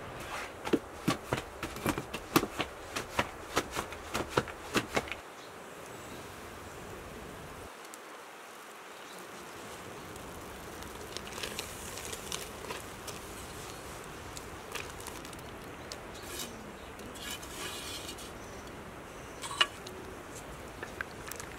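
Metal cooking pots and utensils clinking and tapping, with a quick irregular run of sharp clicks in the first few seconds, then a steady hiss with an occasional single clink.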